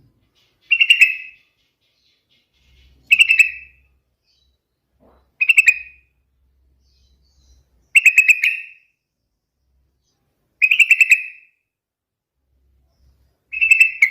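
Yellow-vented bulbul (trucukan) singing: six short, bubbling phrases of quick notes, one about every two and a half seconds.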